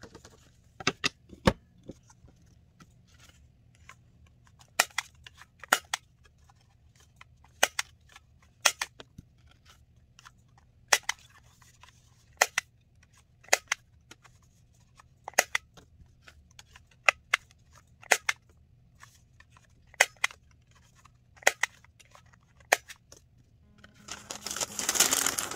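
Sharp snapping clicks of a small hand-held punch pressed through paper hang tags, about eighteen in all, often in quick pairs one to two seconds apart. Music comes in near the end.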